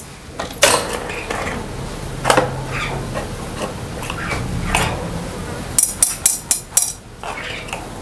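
Crow pecking and tapping a plastic gallon-bottle cap on the cage floor: scattered knocks and scrapes, then a quick run of about five sharp taps near the end.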